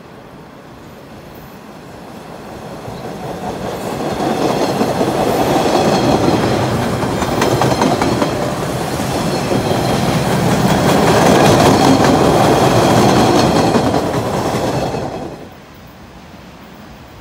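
MBTA Orange Line subway train passing close by, with scattered wheel clicks over the rails. The sound builds over a couple of seconds, stays loud, and drops away suddenly near the end.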